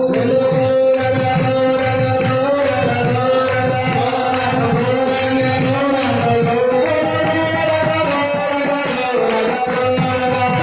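Devotional group singing (kirtan), with steady held drone notes, a drum keeping an even beat and jingling percussion.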